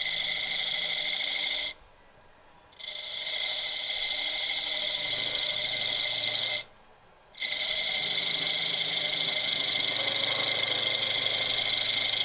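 Freshly sharpened bowl gouge cutting the inside wall of a bowl spinning on a wood lathe: a steady hiss of wood being sheared into shavings. The cut stops twice, briefly, about two seconds in and again about seven seconds in, as the tool lifts off the wood.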